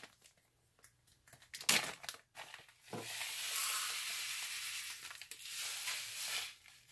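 Black lava sea salt pouring from a plastic zip bag into a plastic measuring cup: a few crinkles of the bag, then a steady grainy hiss for about three seconds, ending as the cup is tipped out into the bowl near the end.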